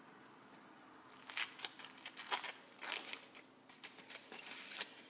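Thin foil wrapper of a Kinder Surprise chocolate egg crinkling as it is peeled off by hand. It comes as a quick, irregular run of crisp crackles that starts about a second in and stops just before the end.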